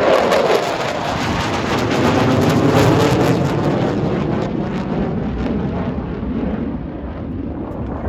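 Jet noise from Blue Angels F/A-18 Super Hornet engines flying past, loudest about three seconds in and then slowly fading.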